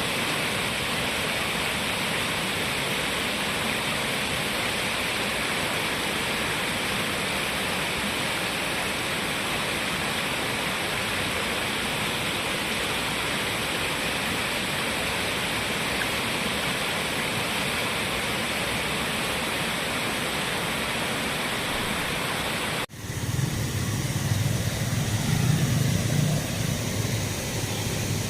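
River water rushing steadily over rocks. About 23 seconds in, it cuts off abruptly and a louder, low rumble takes over.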